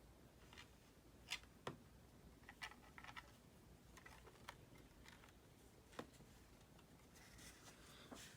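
Near silence with a few faint, light clicks and taps from handling a laptop hard drive and its small parts.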